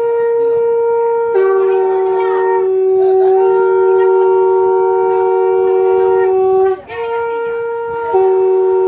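Two conch shells (shankha) blown together in long held blasts at two pitches, one higher and one lower. They overlap and break off in turn for breath. Conch blowing like this marks an auspicious moment in a Bengali Hindu wedding rite.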